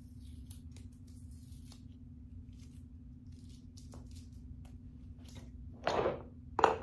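Quiet handling of office-chair parts over a low steady hum, with faint clicks. Near the end there is a short scraping rustle, then a sharp knock as the metal gas-lift cylinder is set into the chair's metal five-star base.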